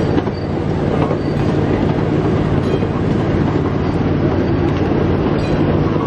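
Ride-on miniature train rolling along its narrow-gauge track, heard from aboard: a steady rumble of wheels and cars on the rails.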